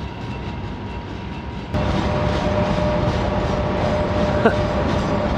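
A train rolling along the track with a steady rumble and a faint steady tone. About two seconds in it suddenly gets louder.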